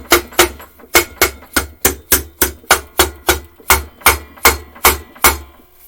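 Hammer blows driving a push-mower engine's case cover down onto its new homemade gasket: a quick, even series of sharp strikes, about four a second, that stops shortly before the end.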